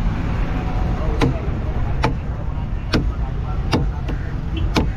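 Fish being chopped with a heavy knife on a cutting board: five sharp chops, about one a second, over a steady low background rumble.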